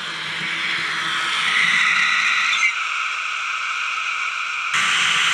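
Märklin BR 212 model locomotive's mfx sound decoder playing its diesel engine sound through tiny built-in speakers, thin and tinny with no bass, over the model's running noise on the track. The sound drops a little about halfway through and comes back louder abruptly near the end.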